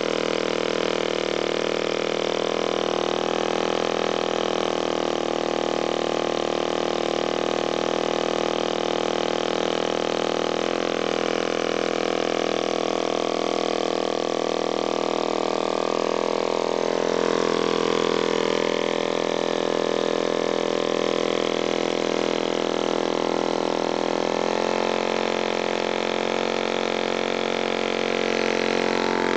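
Pannónia boxer engine driving a small boat, running steadily under way, with small shifts in its note around the middle and again near the end.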